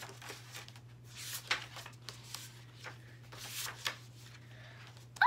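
Sketchbook pages being turned and handled: a series of soft paper rustles and swishes, the loudest a little past one second in and again near four seconds.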